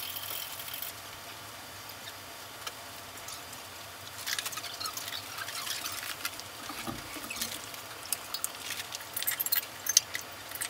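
A marimba being taken apart by hand: its wooden bars and metal resonator tubes lifted and handled, giving irregular clicks, clatter and clinks that begin about four seconds in, with a sharp knock near the end.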